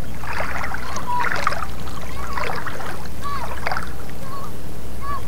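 Shallow seawater splashing and sloshing as someone wades and moves rocks by hand, with small water-drop plinks, over a steady low hum.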